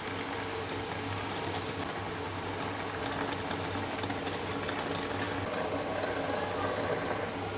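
Spinach boiling in water in a kadai on an induction cooktop: a steady bubbling hiss over a steady low hum, with a few light clinks as a steel spoon stirs it and a steel plate is laid on as a lid.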